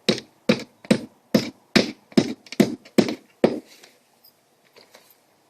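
Hammer driving a nail through a vinyl siding panel's nailing strip, about nine quick, even blows at roughly two and a half a second, stopping about three and a half seconds in. The nail is left floating, not driven tight, so the panel can expand and contract.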